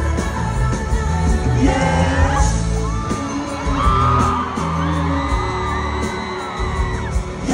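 Live pop-rock performance: a male singer sings over a full band, with heavy drums and bass, heard from the audience in a concert hall.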